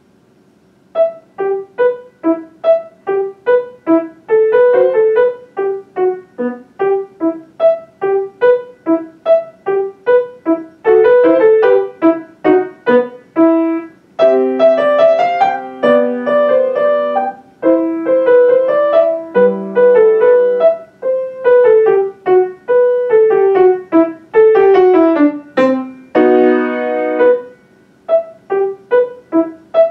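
Grand piano played solo, beginning about a second in: a simple piece of short, separate notes at about two a second, broken by a few held chords.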